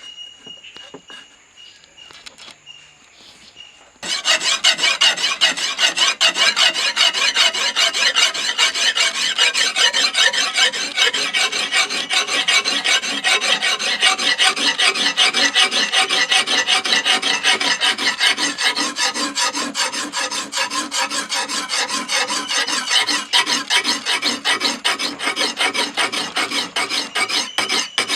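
A knife blade being worked against an abrasive with rapid, even rasping strokes, starting about four seconds in and keeping on steadily.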